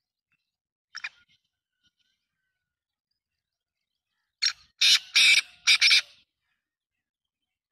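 Black francolin calling. One short note comes about a second in, then a loud call of four quick notes at about four and a half seconds.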